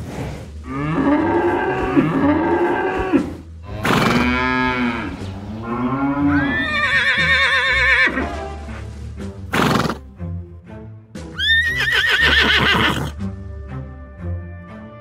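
Farm-animal sound effects over background music: cattle mooing in low, drawn-out calls, two of them in the first few seconds and another about four seconds in. A horse whinnies, with a wavering high call about six seconds in and again near the twelve-second mark. There is a brief burst of noise just before the ten-second mark.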